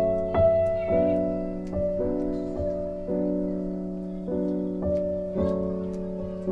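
Background piano music: a slow run of notes over a held low tone.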